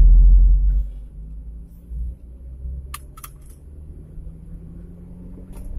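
Perodua Kembara driving on a paved road, heard from inside the cabin: a steady low drone of engine and tyres. A loud low rumble fills the first second, and a few small clicks come about three seconds in.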